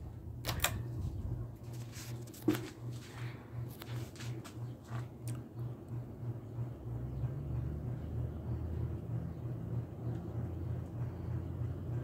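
1987 Alaska 42-inch ceiling fan running: a steady low motor hum that pulses evenly, about three times a second. A few sharp clicks and knocks come in the first five seconds.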